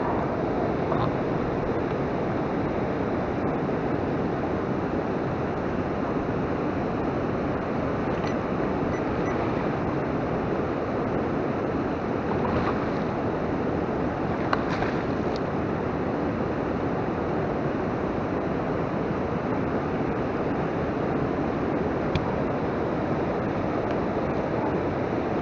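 Steady rushing noise of wind and water, with a few faint ticks.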